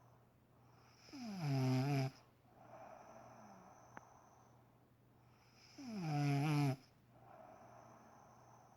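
A woman snoring loudly while asleep: two rough snores about five seconds apart, each lasting about a second and dropping in pitch as it starts, with a softer, breathy exhale between them.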